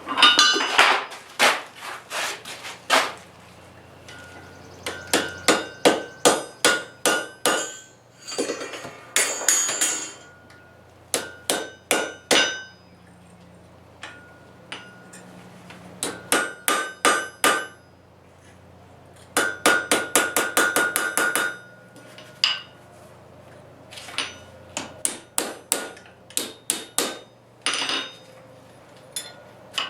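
Blacksmith's hammer striking metal on an anvil in repeated bursts of quick blows, about three or four a second, with a bright ringing note after the strikes.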